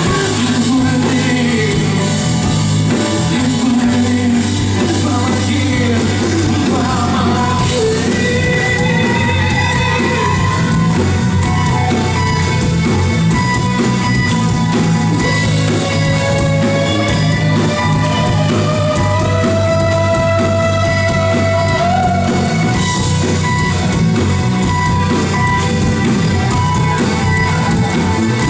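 Rock music with a singing voice: a band playing continuously, with sustained and sliding melodic lines over a full bass.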